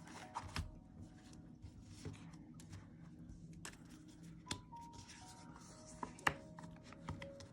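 A large oracle card deck being shuffled and handled by hand: light scattered clicks and rubs of card stock, the sharpest click about six seconds in. Faint background music of a few soft held notes sounds underneath.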